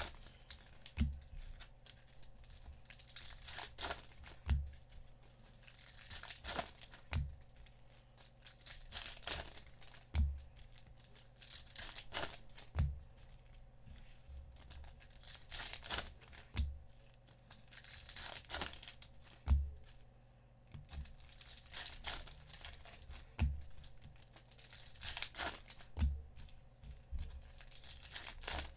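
Trading-card packs from a Bowman Chrome hobby box being torn open one after another, wrappers ripping and crinkling. A soft low thud comes every few seconds.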